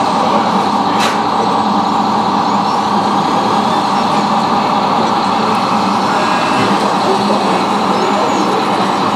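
Steady whirring of a radio-controlled hydraulic wheeled excavator's pump running as its pipe grab lifts and swings a concrete pipe, with a single sharp click about a second in.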